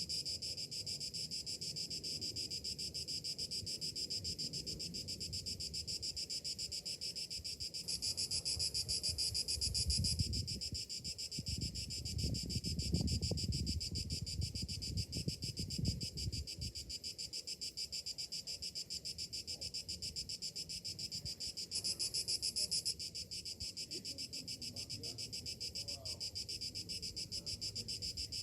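Cicadas chorusing in a steady, finely pulsing high buzz. Twice a brighter, higher layer joins for a second or two, and a low rumble comes through for several seconds in the middle.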